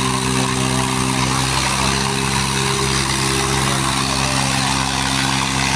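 Diesel tractor engines running hard at full throttle under heavy load, pulling against each other in a chained tractor tug-of-war. The drone stays steady, with no change in pitch.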